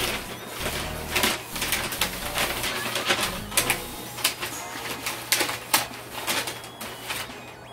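Large sheets of sublimation transfer paper and a cotton t-shirt being handled: paper rustling and crinkling in quick, irregular crackles as the sheets are shuffled and the shirt is spread out on cardboard.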